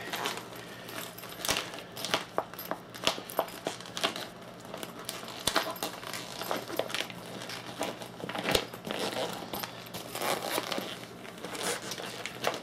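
Plastic wrapping crinkling and rustling as it is handled, with scattered sharp crackles.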